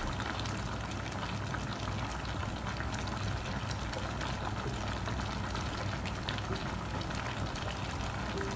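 Coconut milk simmering around sliced saba bananas in an uncovered pan: a steady bubbling with many small pops as the sauce reduces and thickens.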